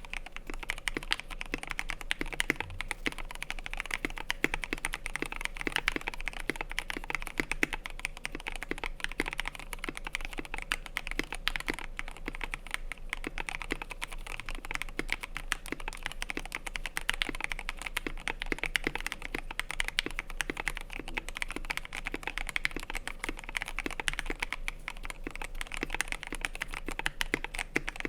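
Continuous fast typing on a KBD67 Lite mechanical keyboard with lubed Gateron Yellow KS3 milky-top linear switches, a polycarbonate plate, stock plate and case foam and KAT Space Cadet keycaps: a steady stream of deep, thocky keystrokes.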